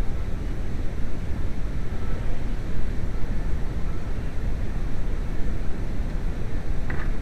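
A steady low rumble with no clear pitch, with a short higher-pitched click or rattle near the end.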